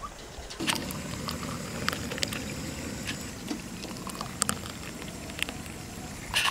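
Thick mango lassi pouring from a blender jar into a plastic cup, a stream of liquid with small scattered splashy clicks over a steady background hiss.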